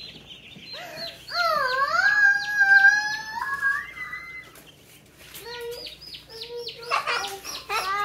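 Baby chicks peeping in short, high, falling cheeps, thickest in the second half. About a second in, a child's voice gives one long drawn-out call of about three seconds that dips, then rises and holds. This is the loudest sound.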